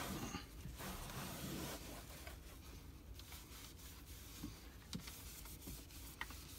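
Microfibre cloth rubbing over the plastic top of a car dashboard for about the first two seconds, then a quiet stretch with a few faint clicks.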